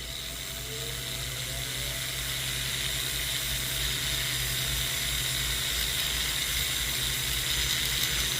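Jeweler's rotary tool spinning a silicone polishing wheel, a steady whir with a faint rising whine in the first couple of seconds, as it smooths a freshly soldered silver jump ring.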